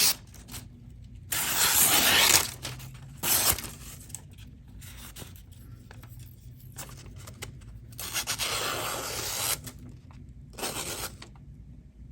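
A freshly sharpened, zero-ground Chris Reeve Umnumzaan tanto blade slicing through thin phone book paper in a few separate strokes, each a dry hissing slice. The longest cuts come about a second in and again around eight seconds in.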